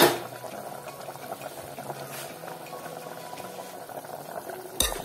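Smoked pork stew boiling hard in a metal pot: steady bubbling with small popping ticks. A sharp click right at the start and another shortly before the end.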